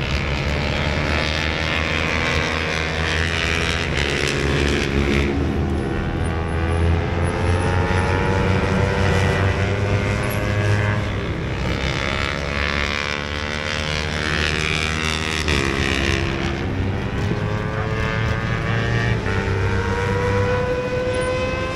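Trials motorcycle engine running and being revved up and down as the rider works the bike through the section, its pitch rising and falling several times and climbing near the end.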